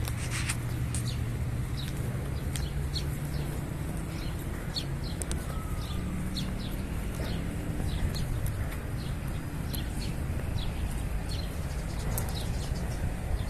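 Small birds chirping, many short high chirps overlapping throughout, over a steady low rumble.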